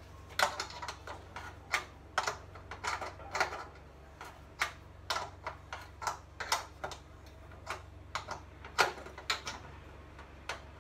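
Irregular metallic clicks and taps of an adjustable wrench working a small nut against the sheet-metal underside of an electric cooktop as the nut is tightened, about two or three a second.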